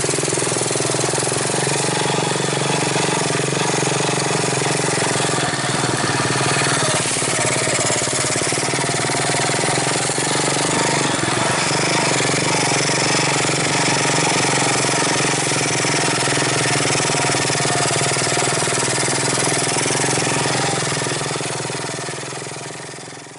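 Small motorcycle engine running steadily while riding along a dirt track, fading out near the end.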